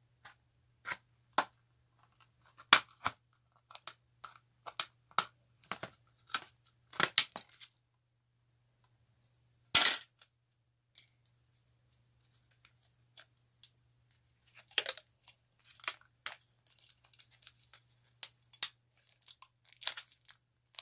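Plastic case of a cheap Chinese tablet clicking and snapping as its snap-fit clips are pried apart, with one loud crack about ten seconds in. Lighter clicks and rattles follow as the opened case and circuit board are handled.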